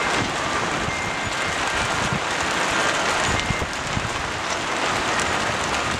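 Small hailstones falling steadily and hitting a shingled roof and the ground: a dense, even hiss made of countless tiny ticks.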